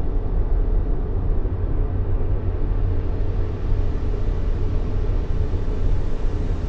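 Steady baby-soothing white noise, a low, rumbling hush with most of its weight in the deep end and little hiss, unchanging throughout.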